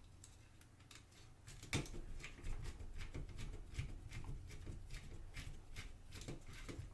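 Irregular light clicks and taps of small plastic and metal parts and a hand tool being worked on a digital camera being taken apart, starting about a second and a half in.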